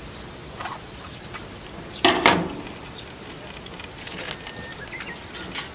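Tap water running into a sink and splashing over hands rinsing a peach, a steady hiss. One short, louder knock or splash about two seconds in.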